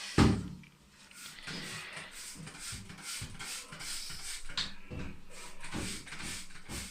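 A single knock, then a run of quick rubbing strokes, about three or four a second, as a bicycle is scrubbed clean.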